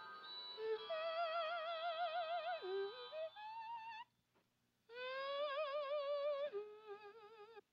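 Wordless singing in long held notes with a wide vibrato, sliding down and back up, then rising into a new held note after a short silence about four seconds in. Steady held instrumental notes sound underneath at the start.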